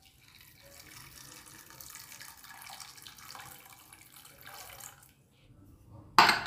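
Water poured from a jug into an aluminium pressure cooker over chickpeas, a steady splashing pour that stops about five seconds in. Near the end, a sudden loud metal clank as the pressure cooker's lid and whistle weight are fitted.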